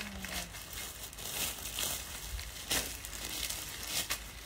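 Clear plastic garment bags and clothing crinkling and rustling as they are handled, in irregular rustles with one sharper crackle a little after the middle.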